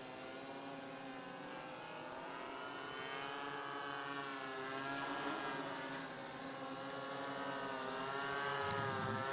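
Electric quadcopter built from a cat's body flying overhead: its motors and propellers give a steady buzzing hum of several pitches that waver up and down as the rotors speed up and slow.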